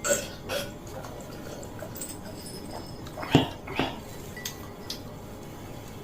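Close-miked eating sounds of a person eating fried noodles: short clicks and knocks of utensils on dishes and mouth noises, with two louder, deeper throat sounds about three and a half seconds in.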